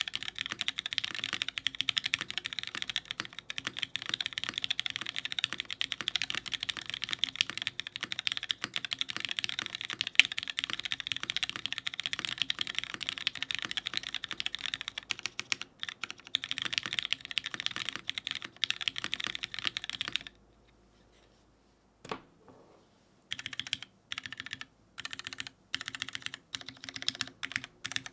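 Mechanical keyboard with lubed Cherry MX Black linear switches on a top-mounted full aluminum plate with GMK keycaps, typed on fast and continuously. About two-thirds through the typing stops for roughly three seconds, broken by a single sharp key press, then resumes in short bursts of keystrokes.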